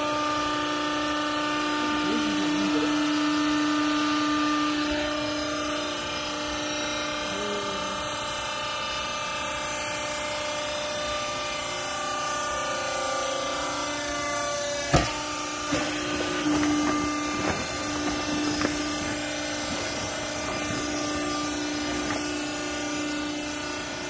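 Hydraulic power unit of a vertical used-clothing baler running with a steady hum. A single sharp knock comes about fifteen seconds in, followed by scattered clattering.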